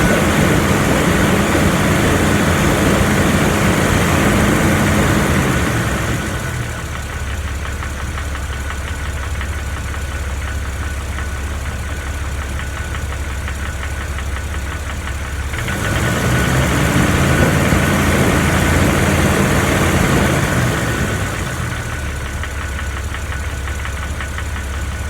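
Jeep Wrangler TJ engine revved up and held at raised speed twice, falling back to idle in between and near the end. The owner suspects a ticking, rattling noise from the flexplate or bell housing area, which seems to go away at higher revs.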